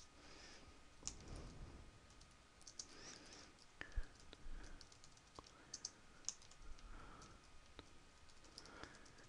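Faint computer keyboard typing: scattered key clicks, with one sharper click about four seconds in.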